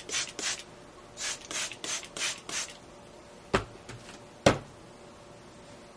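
Hands rubbing and scrunching through curly wig hair close to the microphone, a run of short rasping strokes, followed by two sharp knocks about a second apart, the second the loudest.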